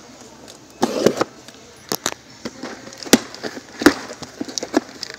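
Cardboard shipping case being handled: a rustling scrape about a second in, then a series of sharp cardboard knocks and clicks as the taped case is lifted and its flap opened.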